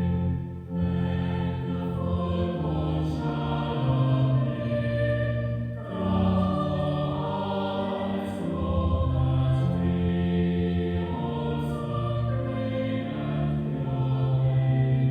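A choir singing a slow hymn in long held chords that change every second or so.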